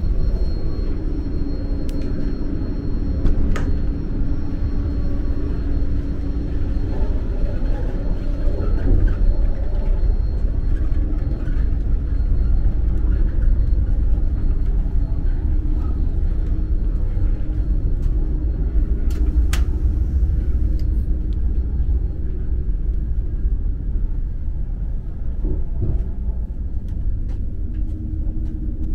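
Running noise of a Deutsche Bahn ICE 3 high-speed train heard on board: a steady low rumble, with a few faint clicks.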